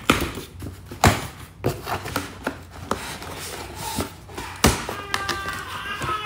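Hard taps and knocks of carbon fiber trim pieces and their packaging being handled and set down, a string of sharp clicks with the loudest about a second in and just before five seconds.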